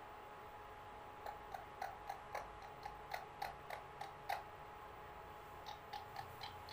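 Pet parakeet making short, sharp clicks with its tongue and beak: a run of about three clicks a second lasting some three seconds, then a shorter run of a few clicks near the end.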